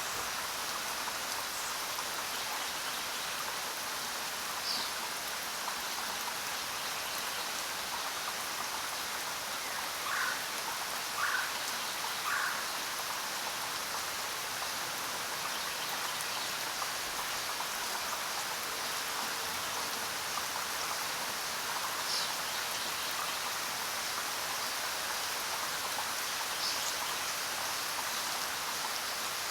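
Steady heavy rain falling on jungle foliage, an even hiss. A few short bird chirps sound over it, three of them in quick succession about a second apart around the middle.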